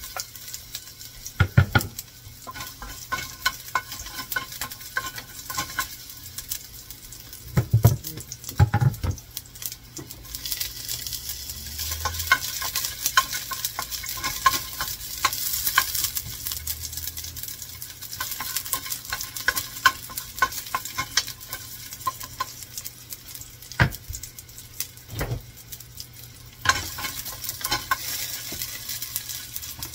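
Chopped garlic sizzling in hot olive oil in a stainless steel pot while a wooden spoon stirs it, with many light scrapes and taps against the pot. The sizzle grows louder about ten seconds in, and a few heavier knocks stand out.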